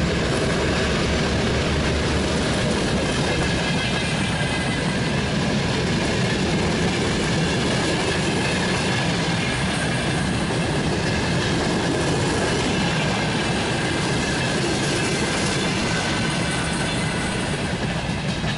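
Broad-gauge freight train of empty coal wagons, hauled by a pair of ST40 diesel locomotives, running past close by: a steady, loud rumble with wheels clattering over the rails.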